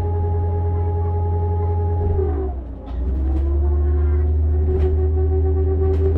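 Volvo radiator cooling fan whining steadily over a low engine drone. A little over two seconds in the whine sags in pitch, then climbs back to a steady, slightly lower note, with a few faint clicks.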